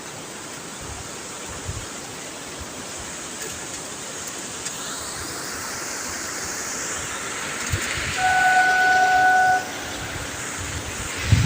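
A train approaching, its rushing noise slowly building, with the locomotive's horn sounding once, a steady tone of about a second and a half, a little after the middle.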